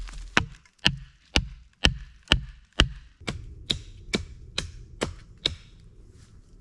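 Repeated blows of a tool striking wood, about two a second, as in chopping wood or driving a stake. About a dozen strikes; the second half are softer, and they stop about a second before the end.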